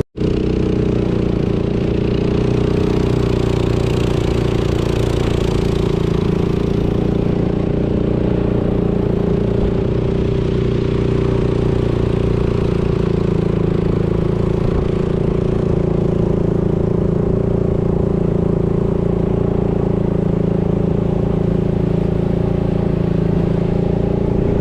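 Boat engine running steadily at a constant speed.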